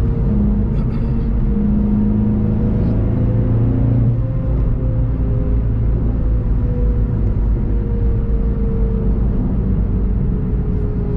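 Volkswagen Golf 7.5 GTI TCR's turbocharged 2.0-litre four-cylinder engine running at steady part throttle, heard from inside the cabin over low road rumble. The engine note falls slowly over the last few seconds as the car slows.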